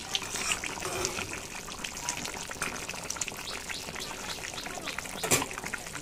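Chicken and potato curry simmering in a pan on the stove, bubbling and sizzling, with a ladle stirring through it. There is a sharper click near the end.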